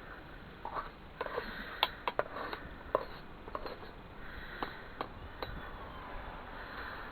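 Scattered light clicks and clinks of metal lead-casting tools being handled, a dozen or so irregular taps over a steady hiss.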